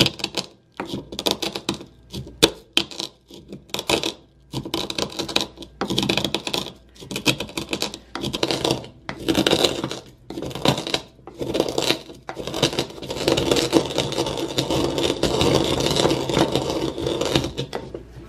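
Whole dark-roast coffee beans crushed in a wooden mortar and pestle: a run of separate pounding, crushing strokes, then a continuous grinding rub in the last third.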